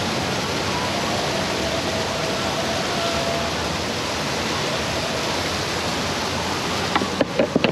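Steady splashing of water from the fountain in a mini-golf course's water-hazard pond, with a few sharp knocks near the end.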